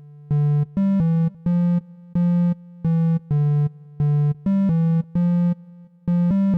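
Background music: a synthesizer playing a melody of short and held notes in an uneven rhythm, with no drums yet.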